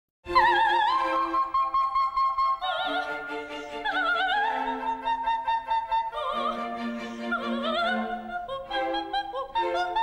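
Opera-style classical theme music starts abruptly out of silence. A high melody with wide vibrato sings out over sustained string-like chords, and a run of quicker short notes comes in near the end.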